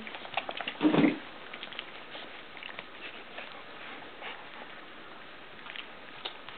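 Mother dog nosing and licking her newborn puppies: soft, scattered wet clicks and patters, with a brief loud rustle about a second in.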